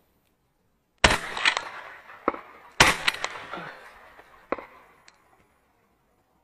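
Two shotgun shots from a Fabarm XLR5 Waterfowler semi-automatic shotgun fired at a bird overhead, about a second in and again nearly two seconds later, each trailing off in a long echo. Two fainter sharp cracks follow, the second near the middle.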